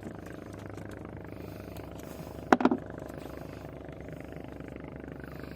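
Fishing boat's engine running steadily, with a quick cluster of sharp knocks about halfway through.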